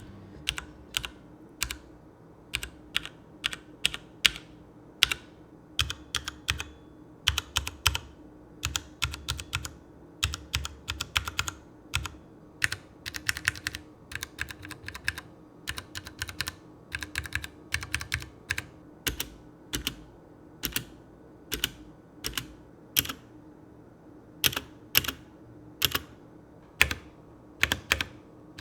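Typing on a mechanical keyboard with Cherry MX Brown tactile switches: keystrokes in irregular runs of a few a second, with short pauses between them.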